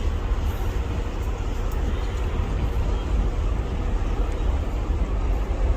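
Steady low rumble and rushing noise aboard a moving passenger ferry: the vessel running under way with wind and water noise.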